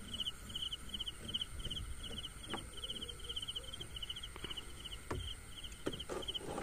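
An insect, cricket-like, chirping steadily in short pulsed chirps, about three a second, with a few soft knocks scattered through.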